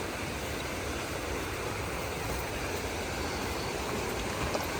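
River water rushing steadily over rocks: an even, unbroken noise.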